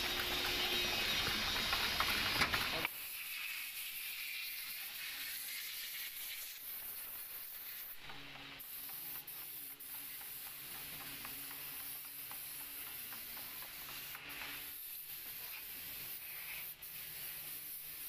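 Paint spray gun hissing steadily, with a faint low hum underneath. For the first three seconds a louder rushing noise runs, then cuts off suddenly.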